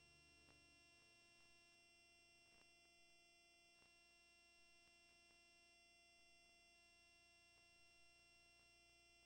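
Near silence, with only a faint steady electrical hum of several fixed tones and a few faint clicks.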